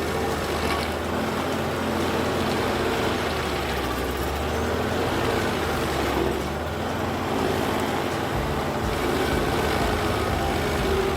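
Heavy wood-processing machine's engine running steadily under work, its low hum changing about eight seconds in.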